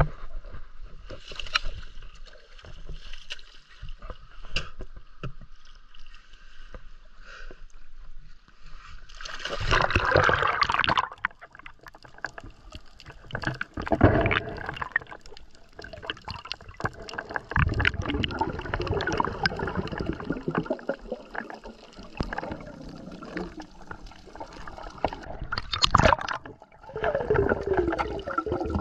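Water sloshing, gurgling and splashing around a diver entering the sea and finning face-down over a reef, heard partly underwater. There are louder surges of splashing about ten seconds in and near the end.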